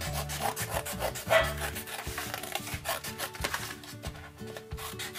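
Scissors cutting through black paper: a run of quick, irregular snips and the rasp of the blades through the sheet.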